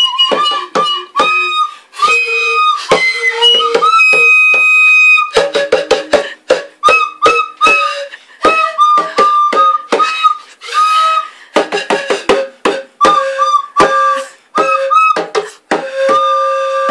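A pan flute and a recorder playing a tune together in short, clipped notes, with sharp hand taps on a djembe in between.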